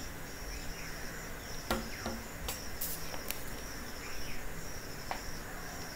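Quiet background with a steady high-pitched insect-like chirring, broken by a few faint short clicks.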